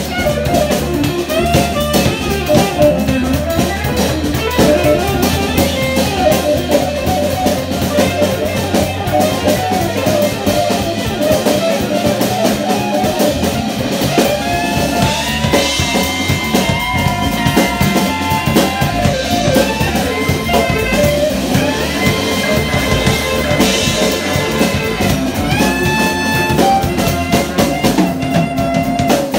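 Live band music: electric bass, hollow-body electric guitar and drum kit playing together, with long held melody notes coming in about halfway through.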